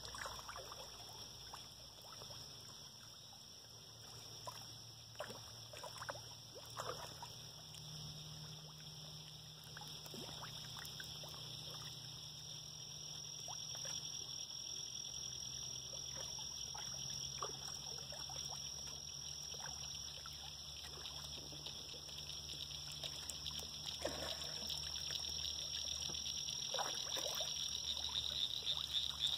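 Fish rising at a pond surface, giving small scattered plops and splashes every few seconds. A steady high-pitched drone runs underneath and grows louder near the end.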